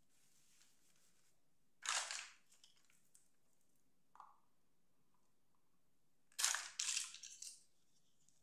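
Handling noise from small plastic toys being picked up and set down: a short rustling, scraping burst about two seconds in, a light tap about four seconds in as a little doll is set on a plastic toy bed, and a longer run of rustling and clattering near the end.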